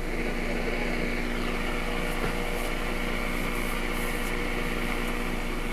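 1952 Zenith H-503Y AM tube radio coming on, its speaker giving a steady hiss of static over a low hum with no station tuned in, and a faint falling whistle about a second in.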